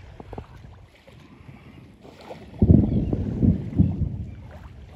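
Wind buffeting the microphone in a low, uneven rumble, with a strong gust starting a little past halfway and lasting about a second and a half.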